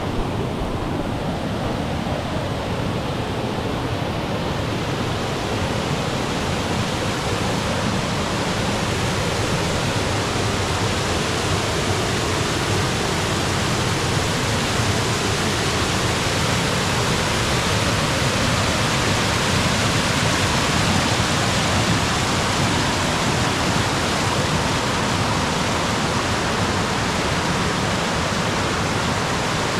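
Waterfall pouring, a steady even rush of falling water that grows a little brighter over the first few seconds and then holds.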